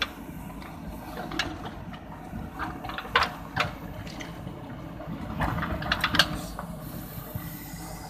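JCB backhoe loader's diesel engine running steadily while its backhoe bucket digs into soil, with sharp knocks and scrapes from the bucket and arm about a second and a half in, a few around three seconds, and a cluster near six seconds.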